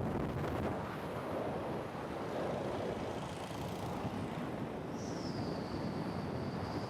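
Wind buffeting the microphone over the rumble of an Evolve Carbon GT electric skateboard rolling on pavement at about 22 mph on 97mm ABEC street wheels. A thin high whine comes in about five seconds in, dips slightly and holds.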